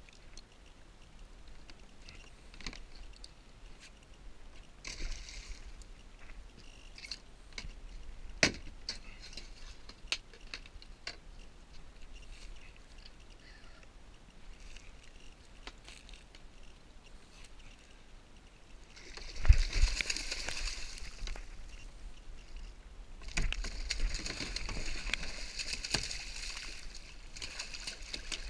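Light water sounds with scattered small clicks and knocks while a hooked spotted mackerel is fought from a sit-on-top kayak, then a single loud thump. From about five seconds before the end, sustained splashing as the mackerel thrashes at the surface beside the kayak while it is gaffed.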